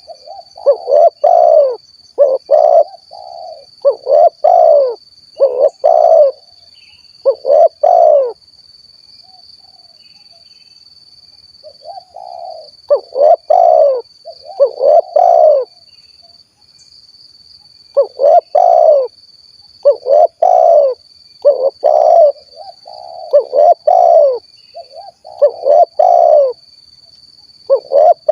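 Spotted dove (tekukur) singing its 'kuk 1' song: phrases of low, quickly repeated coos, with a break of a few seconds after about eight seconds and again around sixteen seconds. A steady high-pitched whine sounds underneath throughout.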